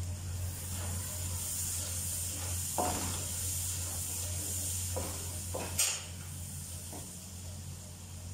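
Onions and spice masala sizzling in oil in an aluminium pot with a steady high hiss, being stirred and fried with a wooden spoon. A few knocks of the spoon against the pot, the sharpest about six seconds in.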